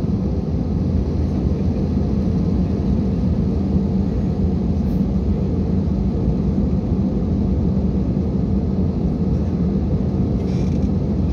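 Airbus A320-family jet airliner taxiing, heard inside the cabin: a steady low rumble of the engines at taxi power.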